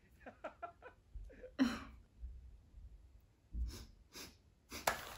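A woman breathing heavily and sighing in exasperation, with a few short mumbled sounds in the first second and a sharp click near the end.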